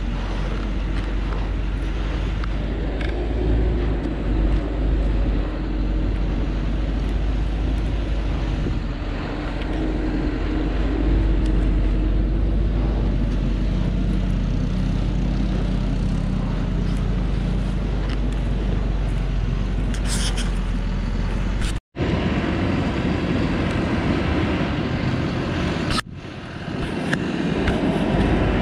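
Heavily loaded log truck's diesel engine labouring uphill on a dirt track, a deep steady rumble under load. The sound drops out for an instant twice in the last third.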